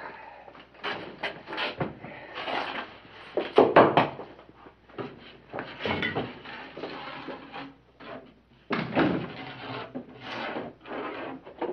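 Scrapes and knocks of masonry work: a board of wet cement being set down and concrete blocks being laid and worked into place. The sounds come irregularly, loudest about four seconds in.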